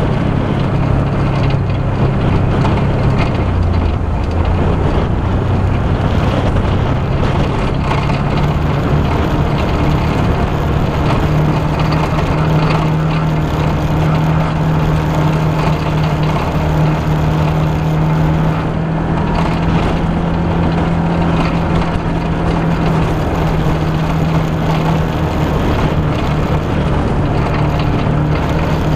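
Side-by-side off-road vehicle's engine running steadily as it drives along a dirt track, over a steady rush of noise. The engine note drops a little about three seconds in and rises again about eleven seconds in.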